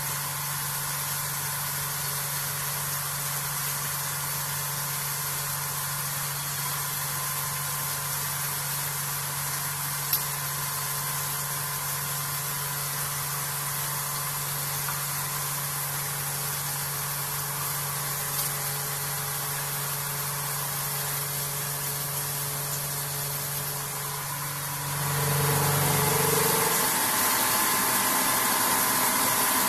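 Vertical machining centre face milling an aluminium part: a steady machine hum with several held tones and a hiss. About 25 s in it gets louder, with a wider hiss, while the low hum swells briefly and then drops away.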